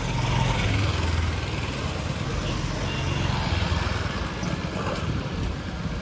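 A motor scooter's small engine running as it passes close by and pulls away up the lane, loudest in the first second or two, over a steady rumble of street noise.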